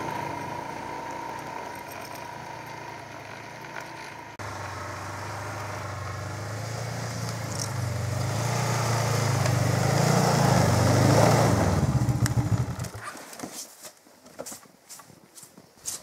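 Snowmobile engine running as the machine pulls away and fades. It then comes back louder on approach, rising to a peak, and cuts off about thirteen seconds in. Scattered light crunches and clicks follow.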